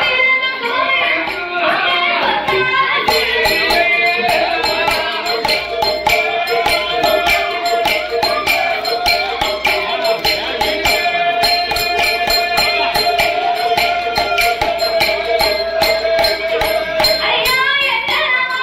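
Villupattu (Tamil bow-song) folk music: a voice sings for the first few seconds, then the bow's bells and percussion keep a fast, steady jingling beat under a long held note, and the singing comes back near the end.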